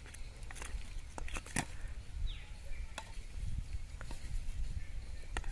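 Scattered light clicks and taps from bamboo sticks and plastic bottles being handled, irregular and unevenly spaced, over a steady low rumble.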